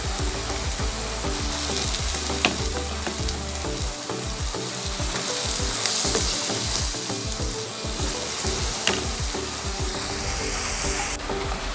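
Diced cucumber, onion and garlic sizzling in butter in a copper pan as they are stirred, with a few sharp clicks of the utensil against the pan.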